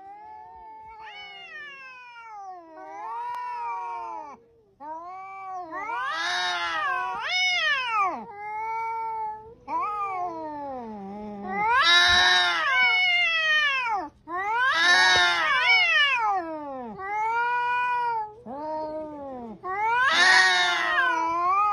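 Two domestic cats yowling at each other in a standoff. A series of long, wavering, drawn-out calls rise and fall in pitch, one after another with brief pauses, and grow louder in the second half. These are the warning yowls of cats squaring off.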